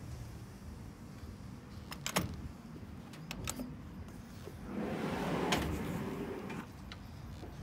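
A few sharp latch clicks, then an aluminium trundle drawer rolling out on its metal ball-bearing slides for about two seconds, with a click partway through the slide.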